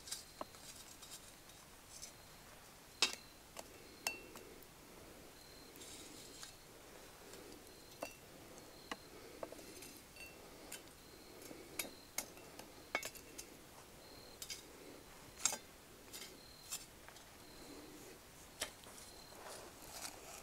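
A small metal coal shovel and tongs scraping up hot coals and clinking against the cast-iron lid of a Lodge camp Dutch oven as coals are heaped on top. The sound is a string of scattered sharp clinks with soft scraping between them.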